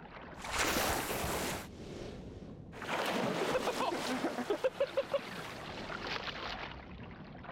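Water splashing and churning at the side of a boat, in three bursts of rushing noise.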